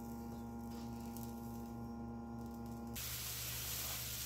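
A low steady electrical hum for about three seconds, then an abrupt change to chopped onion and garlic sizzling in garlic butter in a frying pan, a steady hiss.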